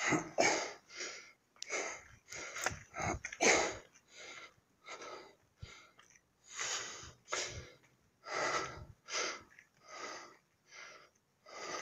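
A man breathing hard close to the microphone, quick heavy puffs in and out more than once a second, from the exertion of climbing steep stone stairs.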